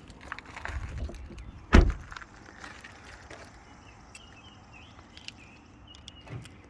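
A car door slamming shut about two seconds in, a single heavy thump, after rustling and shuffling as someone climbs out of the car.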